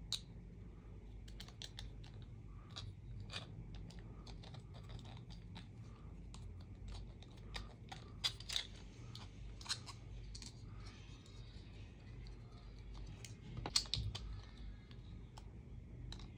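Scattered small clicks and taps of a precision screwdriver and 3D-printed plastic parts being handled as a small screw is driven in, with a few sharper clicks about 8 and 14 seconds in. A low steady hum lies under it all.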